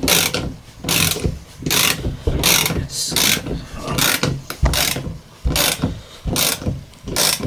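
Half-inch-drive ratchet clicking in repeated strokes, about one every three-quarters of a second, as it is worked to press a universal-joint cap through the driveshaft yoke.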